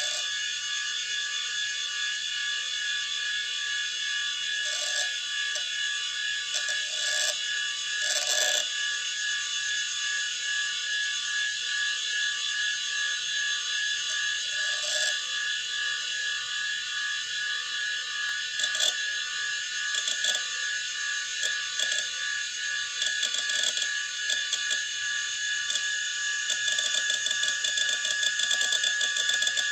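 Quantum Bigfoot CY 2.1 GB 5¼-inch hard drive running, with a steady high whine from the spinning platters. Over it come scattered short bursts of head-seek clicking that grow into near-continuous rapid chatter near the end, as the drive is accessed.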